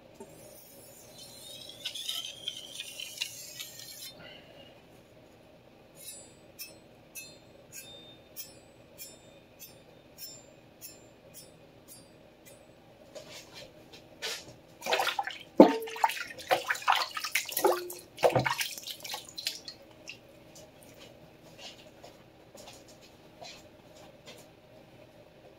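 Steel knife blade scraping over a whetstone, then light ticks about two a second. A loud run of sharp clinks and knocks with short ringing tones follows about halfway through and is the loudest part.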